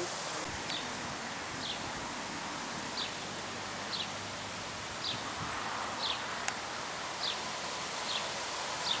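Wind rustling through the leaves of surrounding trees, with a short high chirp repeated about once a second, typical of a small bird calling. There is a single click about six and a half seconds in.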